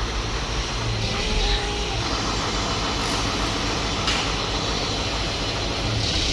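Heavy pile-driving rig machinery running steadily, with a few faint knocks about a second apart near the middle and end.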